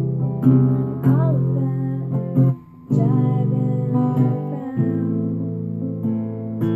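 Acoustic guitar strummed in chords, with a brief break about two and a half seconds in before the strumming picks up again.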